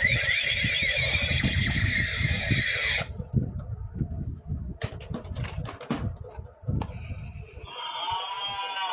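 Electronic toy sound effects with gliding, overlapping tones for about three seconds, then a run of sharp plastic clicks and taps, then a short warbling electronic sound near the end.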